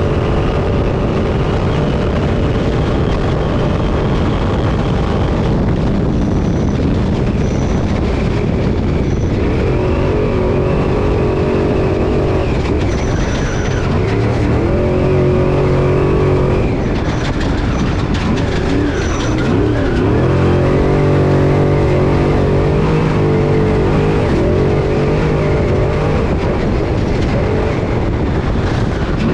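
Engine of a class 6100 off-road race truck, heard from inside the cab at race pace, its revs rising and falling again and again over heavy rumble and rattle from the rough terrain. A few short, high beeps sound in the middle.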